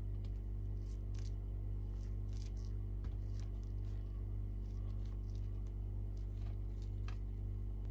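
A table knife cutting down through the glazed, crusty top of a baked sweet potato pastry: scattered light crackles and scrapes over a steady low hum.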